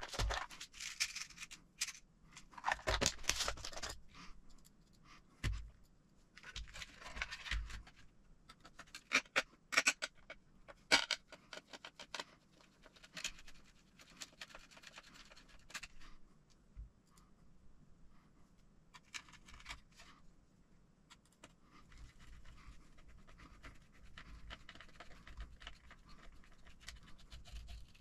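Hands working with the plastic parts and chassis of a radio-control truck kit on a work mat: scattered scrapes, rustles and sharp clicks. The clicks cluster around ten seconds in.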